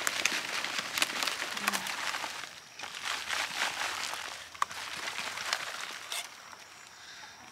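Large leafy plants being pulled up by hand from garden soil: leaves rustling and crinkling, with roots tearing and soil crackling and pattering off them. It dies away about six seconds in.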